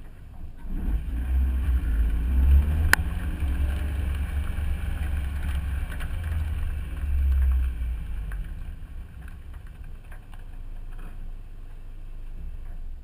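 A car driving along, heard through a camera mounted low on its side: a heavy wind-and-road rumble with the engine note rising as the car gathers speed in the first few seconds, and a single sharp click about three seconds in.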